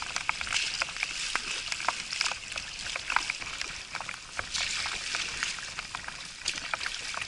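Choppy waves splashing and slapping against an aluminium canoe paddled through rough water, with many sharp splashes over a steady hiss of water.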